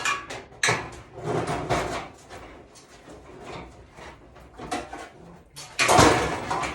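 Handling noises of hand tools on a steel tractor frame: a square and marker being moved and set down, in short clicks and scrapes, with a louder clatter about six seconds in.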